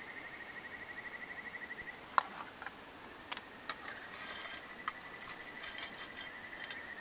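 A metal ladle clinks and scrapes against a pan and a stainless steel bowl as soup is ladled out, in a few scattered clinks; the sharpest comes about two seconds in. Behind it an insect trills steadily in a high, fast-pulsing tone, breaking off for a second or so after the first two seconds.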